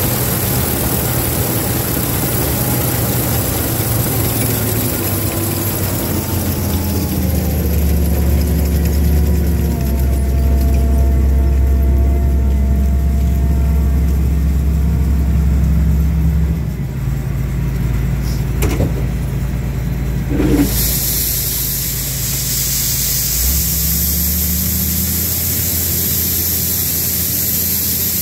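Combine harvester running while harvesting corn, a steady machine drone. Its tones slide down in pitch a few seconds in and then hold, with two sharp clicks about two-thirds through and a high hiss that cuts back in just after them.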